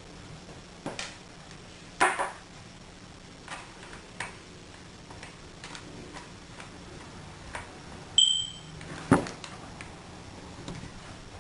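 Scattered clicks and taps of a laptop being worked on by hand to get at its hard drive, with two louder knocks and a short ringing ping about eight seconds in.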